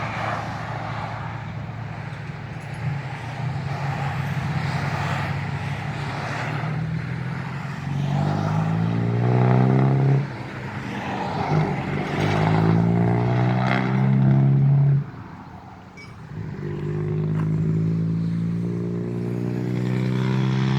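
A vehicle's engine running through its newly modified exhaust, which has a drilled outlet and a baffle fitted. It idles with a low booming note, then is revved three times, each rev held a couple of seconds or more.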